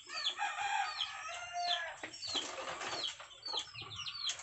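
Chickens calling: short, high peeps that fall in pitch, about two a second, with a longer drawn-out chicken call over the first two seconds.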